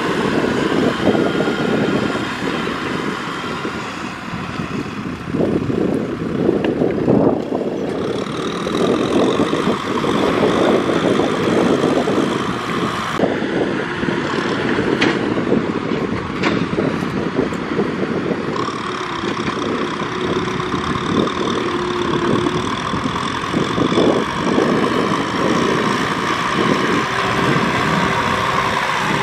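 Kubota M6040SU farm tractor's diesel engine running under load as it pulls a disc harrow through the soil, a continuous, uneven engine noise.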